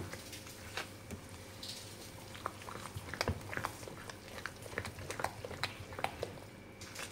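Spoon stirring thick semolina batter with chopped vegetables in a bowl, just after Eno fruit salt has been added. It makes irregular wet squelches and clicks of the spoon against the bowl.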